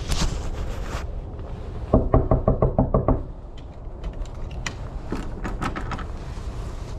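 Knuckles knocking on a door: a quick run of about eight raps lasting just over a second, about two seconds in.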